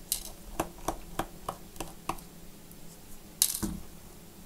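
Light clicks and taps from gloved hands handling a laptop's metal bottom case, about three a second, then one louder knock about three and a half seconds in.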